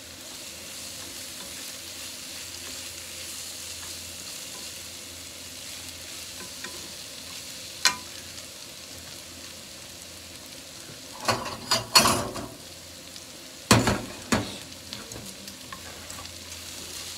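Sliced pork and shredded cabbage sizzling in a frying pan as wooden chopsticks stir them. There is one sharp tap about eight seconds in, then two bursts of louder knocks and scrapes against the pan a few seconds later.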